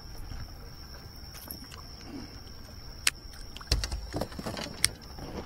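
Scattered sharp clicks and knocks of gear and fish being handled aboard a bass boat, with a short clatter and low thumps just under four seconds in, over a steady high-pitched drone.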